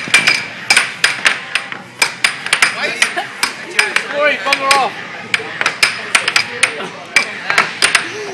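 Air hockey puck and plastic mallets clacking in a fast rally, about three sharp, irregular hits a second.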